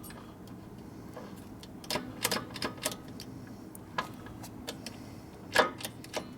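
Scattered metallic clicks and clacks from a 1972 Harley Ironhead Sportster four-speed transmission being shifted by hand on the bench while its mainshaft is turned, the shift parts and gears clicking as they try to engage. A few clicks come about two seconds in, one near four seconds, and a louder pair near the end.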